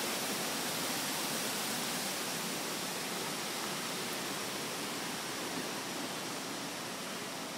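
Hurricane storm noise: a steady, dense rushing of wind and rain, easing slightly toward the end.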